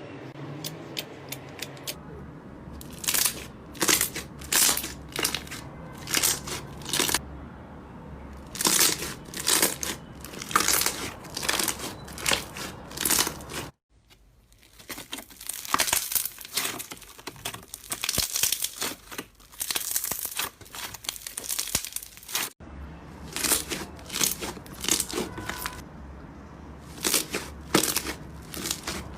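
Slime being squeezed, poked and stretched by hand, giving a rapid run of short pops and crackles. It comes in separate clips that cut off abruptly about 14 and 22 seconds in.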